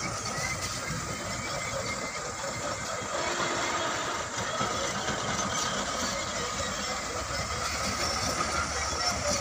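Steady engine noise of diesel dump trucks and machinery working in a quarry, with a faint steady high tone. It gets a little louder about three seconds in.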